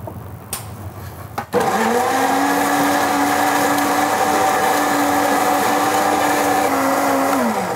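Countertop blender starting up about a second and a half in, spinning up quickly, then running steadily at full speed and winding down near the end. Before it starts there are two sharp knife knocks on a cutting board.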